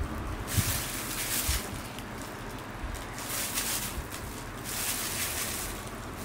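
Callus blade scraping across the thick, dry skin of a heel in repeated strokes, each pass a hiss lasting about a second. A couple of knocks come in the first two seconds.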